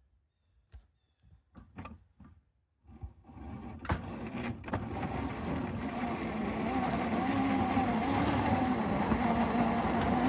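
Electric motors and gearing of a large-scale model locomotive starting up about three seconds in and then running steadily with a hum and a high whine, after a few soft knocks. The locomotive is working against a model Russell snow plow whose wheels are clogged with packed wet snow.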